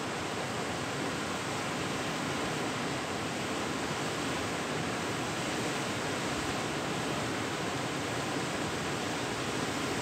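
Rapids on the Clutha River, a broad, fast river, rushing over a rocky bed. The white water makes an even, unbroken rush that holds steady in level throughout.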